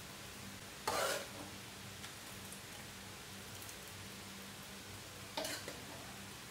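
A metal spoon stirring and turning a cooked gizzard and pechay stew in a bowl: two short stirring sounds, about a second in and again near the end, over a steady faint hiss.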